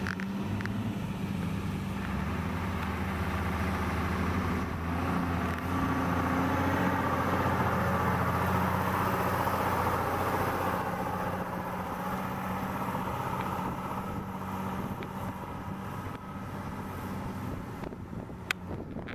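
Mercedes-Benz Actros tipper truck's diesel engine running as it pulls away across the site, growing louder as it passes close about halfway through, then easing off as it drives away. A single sharp click near the end.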